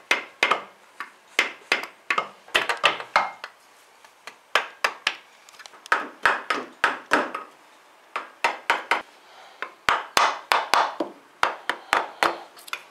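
Quick, light blows of a red soft-faced mallet on the Porsche 944 Turbo's cast-aluminium front camshaft bearing housing, tapping it loose from the cylinder head. The sharp taps come in runs of several a second, with two short pauses.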